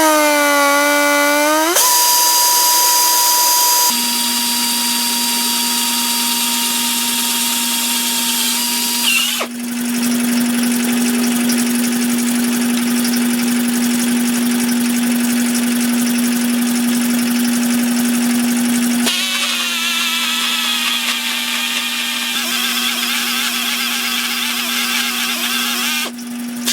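A power drill running: it spins up with a rising whine at the start, then runs steadily with a strong hiss. It dips briefly about nine seconds in and cuts off just before the end.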